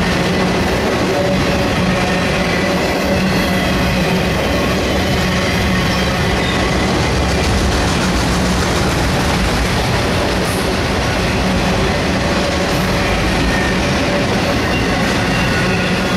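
Loaded autorack freight cars rolling past, a steady loud rumble of steel wheels on the rails.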